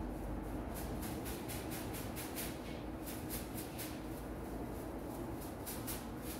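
Barber's scissors snipping hair in quick runs of about four snips a second, over a steady low room hum.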